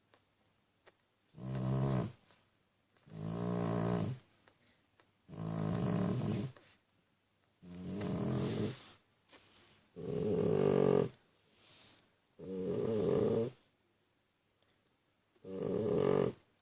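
A nursing mother animal snoring in slow, regular breaths: about seven snores, one every two seconds or so, each lasting about a second, with short quiet gaps between them.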